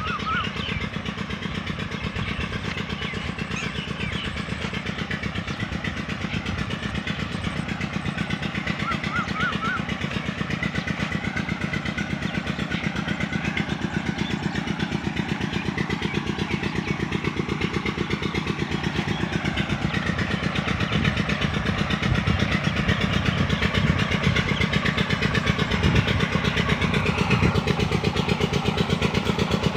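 An engine running steadily with a rapid even pulse, growing a little louder over the last third.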